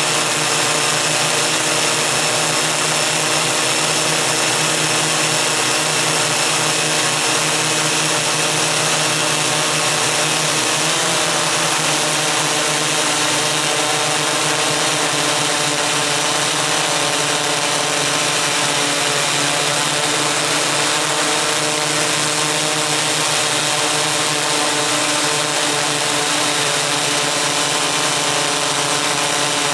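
Electric motors and propellers of a coaxial eight-rotor multicopter (MikroKopter Koax-Quadro X8) running steadily in flight, heard from a camera mounted on it: a steady hum of several tones over propeller hiss, its pitch shifting slightly now and then as the motors adjust.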